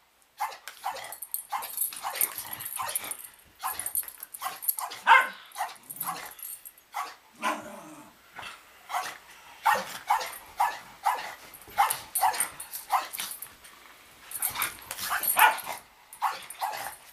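Dogs play-wrestling, a Scottish terrier puppy and a Labrador-mix dog, with many short barks and yips in quick succession.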